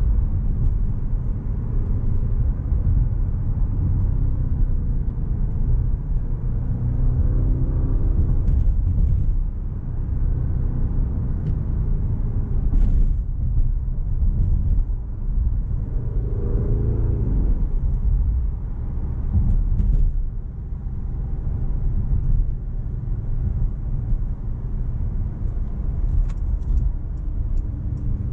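Performance SUV driving at speed: a steady, heavy low rumble of road and wind noise, with the engine note rising briefly twice.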